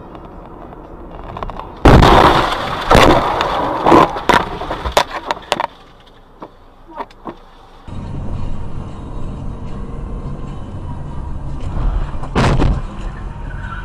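Car collision recorded by a dashcam inside the car: a sudden loud crash about two seconds in, then several seconds of knocks and clatter. Later comes steady engine and road noise from inside a moving car, with another short loud bang near the end.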